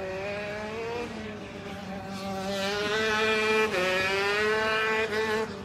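Maxter 125cc two-stroke KZ shifter kart engine at full throttle as the kart runs past on the circuit. Its note climbs, drops suddenly about two-thirds of the way through, climbs again, is loudest in the second half, then falls away near the end.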